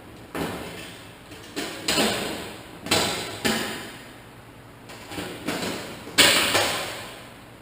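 Hammer blows on the sheet-metal cab panel of a truck, about a dozen uneven knocks, each ringing briefly, as the panel is tapped into place.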